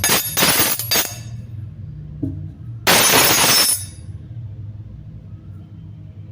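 Metal spoon clinking rapidly against a hard surface for about a second, then after a pause one loud, harsh scraping clatter lasting about a second. A low hum sits underneath.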